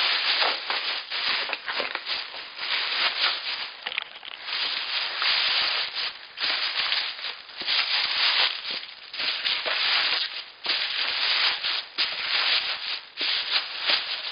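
Plastic wrapping being pulled off and crumpled by hand: continuous, irregular crinkling and rustling with short pauses.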